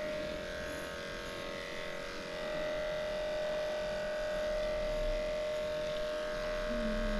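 Cordless dog-grooming clipper running steadily with an even, constant hum as it shaves the body coat of a small bichon.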